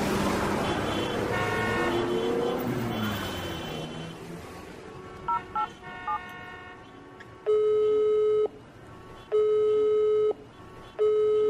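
A noisy rumble fades out over the first few seconds. A phone is then dialled: a few short keypad beeps about five to six seconds in. The line then gives three steady call tones, each about a second long with short gaps between them.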